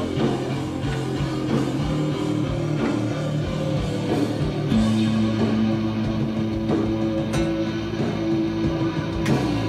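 Rock music with guitars. From about halfway through, long notes are held and ring on.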